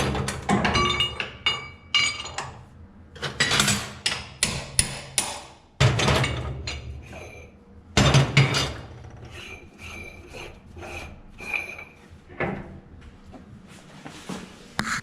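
Steel lathe tooling being knocked loose and handled at the spindle nose of a 1972 AFM lathe: a series of metal knocks and clanks, some ringing briefly, with two heavier strikes about six and eight seconds in.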